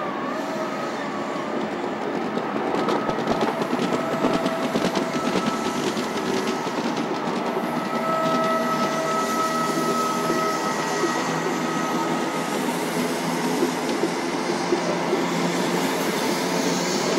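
InterCity 125 High Speed Train's coaches rolling past: a steady rumble of wheels on rail, clicking over the rail joints, with a thin wheel squeal at times. It grows a little louder about two seconds in.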